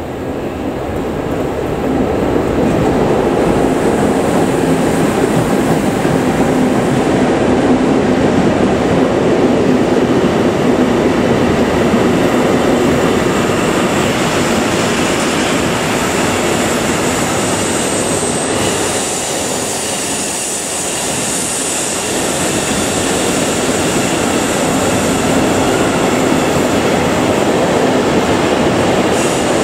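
Long intermodal freight train passing close by: a Siemens Vectron electric locomotive, then a string of container and swap-body wagons, wheels rolling over the rails in a steady rumble that builds as the locomotive draws alongside. A thin, high wheel squeal from the curve comes in about halfway through.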